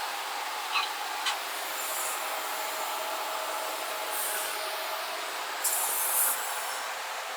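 Steady whooshing shop noise with two short bursts of high air hiss about four and six seconds in, and a couple of light clicks about a second in.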